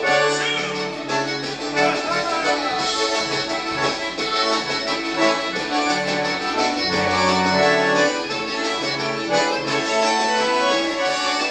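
Button concertina playing a vanera, accompanying recorded gaúcho band music from a television. Sustained reed chords over a moving bass line.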